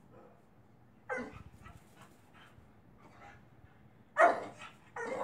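A pup barking at being left: a sharp bark about a second in, a few faint short sounds after it, then two loud barks near the end.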